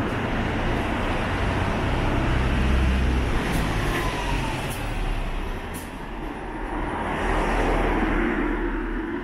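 Road traffic passing close by: a heavy vehicle's engine rumble swells to its loudest about two to three seconds in, and another vehicle passes near the end over a steady tyre and street noise.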